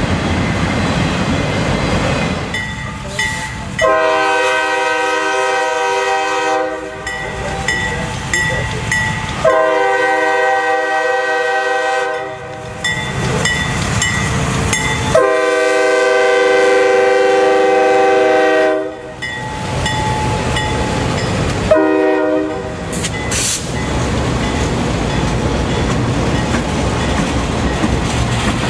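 Freight train rolling past, then a CSX diesel locomotive's air horn sounding a chord of several tones in three long blasts and a short one. After that the locomotives and autorack cars rumble and clatter past.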